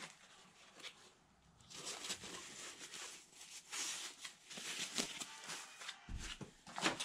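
Plastic bags and packaging rustling and crinkling in the hands, in irregular bursts after a quiet first second or so, with a soft thump about six seconds in.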